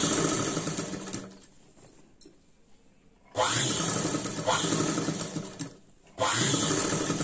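Sewing machine stitching in three short runs, each speeding up quickly at the start and running for about two seconds. The first run stops about a second in, the second starts about three seconds in, and the third starts near the end.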